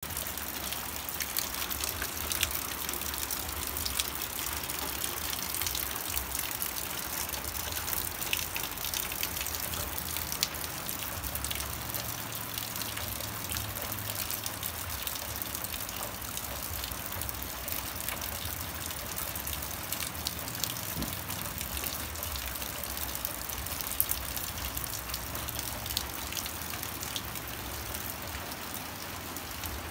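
Steady rain falling, with scattered sharp drop hits on a surface.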